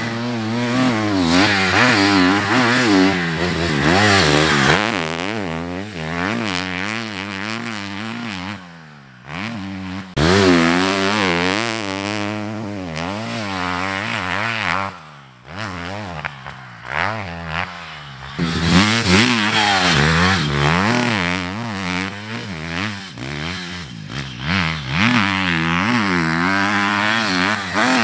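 Triumph motocross bike engine revving hard and falling back over and over as the rider accelerates through the sand and shifts gears, the pitch climbing and dropping repeatedly. The sound drops away briefly about a third of the way in and again just past halfway.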